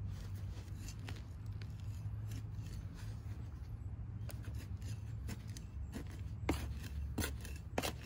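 Metal hand trowel scraping and digging through loose potting soil in a plastic pot, with gloved hands rummaging through the roots. It is a run of irregular scrapes and clicks, with a few sharper ones near the end, over a steady low hum.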